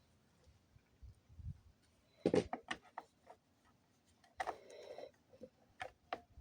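Screws being driven back into a Stihl TS420 concrete saw's housing: scattered clicks and knocks of the tool and parts, a short clatter a little over two seconds in, and a brief whir about four and a half seconds in.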